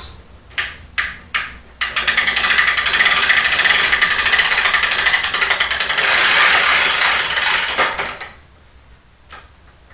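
The ratcheting pull mechanism of a bow draw-testing board clicking as a drawn PVC bow is let down from full draw. It gives a few single clicks, then a fast, loud run of clicks for about six seconds that stops near the end.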